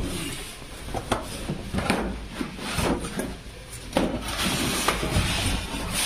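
Cardboard packaging of a refrigerator carton being cut and pulled apart by hand: a series of short scrapes, rubs and knocks.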